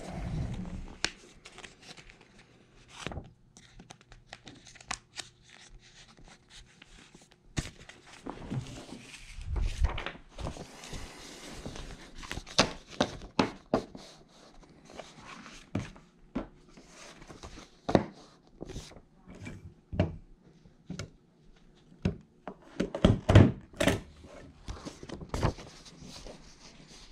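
Sheets of printer paper rustling and crinkling as pages are shuffled and turned by hand, with scattered light knocks and handling thumps and a cluster of louder knocks near the end.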